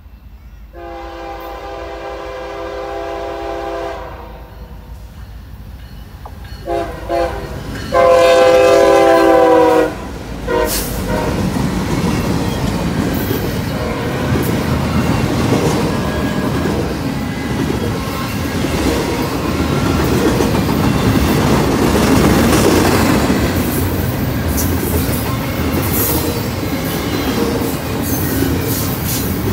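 Diesel locomotive horn on an approaching double-stack intermodal freight train: one long blast, two short ones, then a loud long blast. The train then passes close by, with the steady rumble and clatter of stack well cars on the rails.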